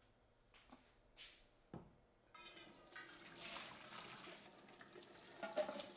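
Faint sloshing and dripping of half-cooked giant beans and their cooking water in a stainless steel pressure cooker pot, starting about two seconds in after a near-silent start with a light click.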